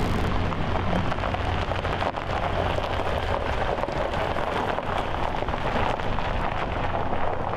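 Pickup truck driving slowly along a dirt and gravel lane: tyres crunching steadily on the gravel over a low engine hum.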